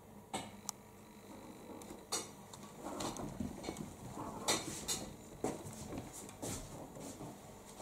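Scattered light clicks and taps with some rustling, busiest about halfway through: close handling and movement noise.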